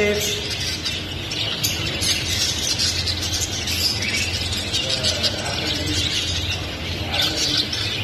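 A flock of caged budgerigars chirping and chattering: many short, high calls overlap without a break, over a steady low hum.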